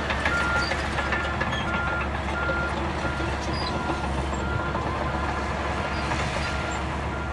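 Reversing alarm of a heavy earthmoving machine, beeping steadily about one and a half times a second over the low, continuous rumble of its diesel engine. A few sharp clanks come in the first second.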